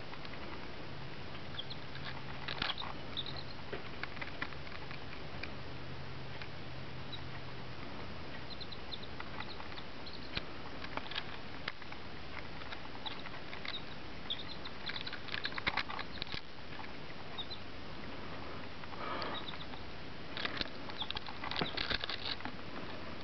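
Three-day-old chicks giving short, high peeps now and then, with brief scratchy clicks as they peck and shuffle on a bare hand, over a steady hiss. The clicks come in clusters, busiest near the end.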